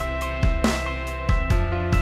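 Instrumental background music with a steady drum beat, about one low drum hit every two-thirds of a second, under sustained held notes.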